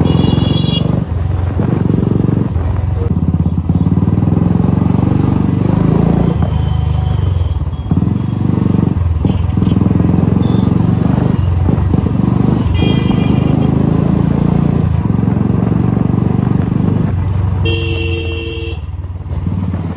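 Royal Enfield Bullet single-cylinder motorcycle, fitted with a replacement silencer, running at riding speed with a steady deep exhaust note. Short horn toots come at the start and about thirteen seconds in, and a longer honk about eighteen seconds in.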